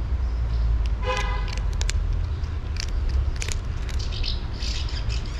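Street ambience: a steady low rumble of traffic, one short steady tone like a horn toot about a second in, and small birds chirping briefly throughout.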